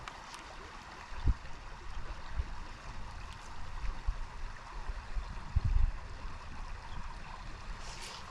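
Creek water running steadily, with a few low thumps on the microphone, the strongest about a second in and another around the middle.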